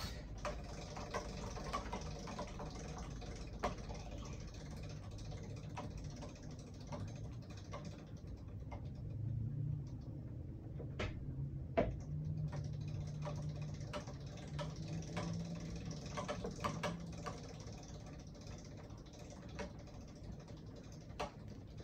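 Hand-cranked etching press being turned to run its bed and felt blankets under the roller: a run of small irregular clicks and creaks, with one sharper knock about midway and a low hum for a few seconds in the middle.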